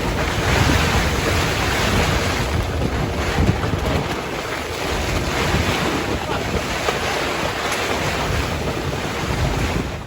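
Strong wind buffeting the microphone over the wash of the sea, a steady rushing noise with low gusty rumbles that cuts off abruptly at the end.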